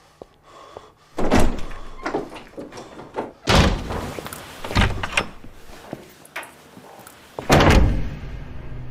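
Interior doors being shut hard: four heavy thuds a second or two apart, the loudest about a second in and another near the end.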